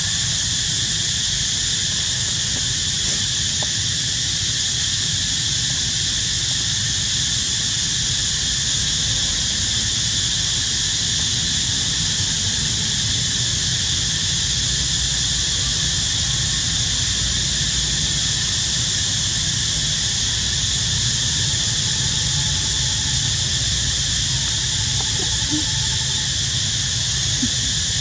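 A steady, high-pitched insect chorus that does not change, with a low rumble underneath.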